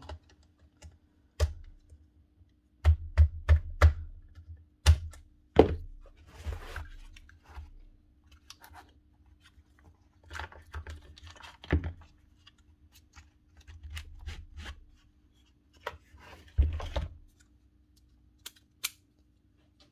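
Knocks, clicks and rattles of hands working on a partly dismantled Bosch GSH4 demolition hammer: a screwdriver and the hammer's plastic and metal housing parts handled and set down on a workbench while the motor is taken apart. There is a quick run of several knocks about three seconds in, and scattered single knocks after.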